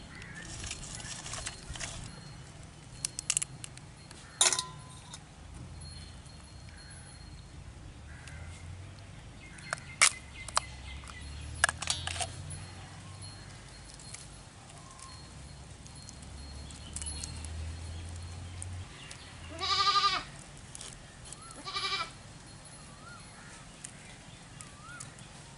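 Hands breaking apart and cleaning raw sea crabs over steel bowls, with occasional sharp cracks and clinks of shell and metal. Near the end an animal calls out twice, two short pitched cries about two seconds apart.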